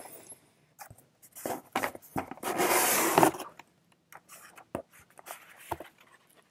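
Paper and cardboard rustling and scraping as hands dig through a cardboard shipping box and pull out paper inserts, with one longer rustle about two and a half seconds in and small clicks and scuffs after it.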